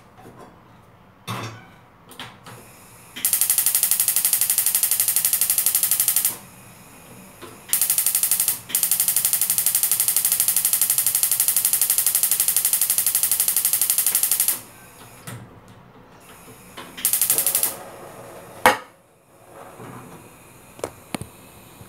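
Gas hob's electric spark igniter clicking rapidly in long runs while a burner knob is held to light the burner, stopping and starting again several times. A single sharp knock near the end.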